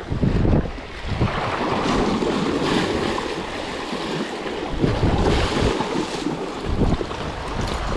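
Sea waves washing against rocks, with wind gusting across the microphone in uneven low buffets.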